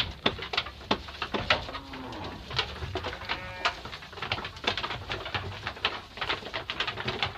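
Garut sheep pulling at and chewing hand-held bundles of fresh grass: rustling leaves and many irregular clicks and knocks, with a short low call twice.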